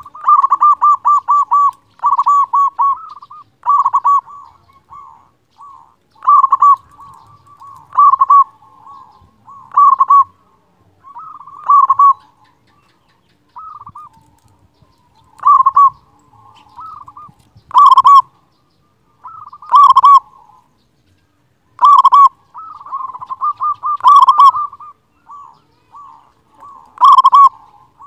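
Zebra dove (perkutut) cooing: loud phrases of quick, short rolling coo notes, repeated about every two seconds.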